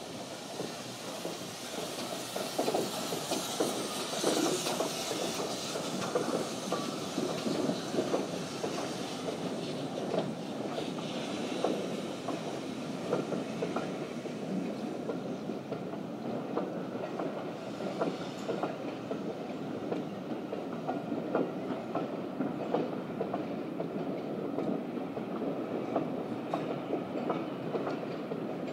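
Steam-hauled passenger train passing at low speed: a hiss from locomotive 9351 over the first several seconds, then the coaches rolling by, their wheels clicking steadily over the rail joints.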